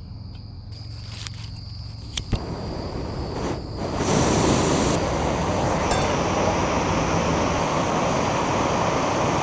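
Portable gas camp stove burner running with a steady rushing hiss, heating the pot of water for noodles. It builds up after a couple of sharp clicks in the first seconds, and insects trill faintly at first.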